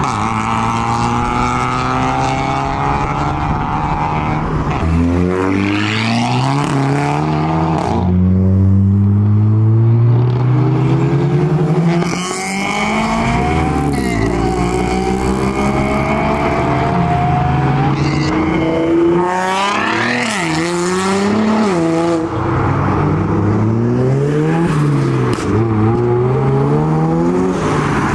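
Modified Japanese performance cars pulling away and accelerating past one after another. Each engine revs up through the gears, its pitch rising and then dropping sharply at each shift or lift of the throttle.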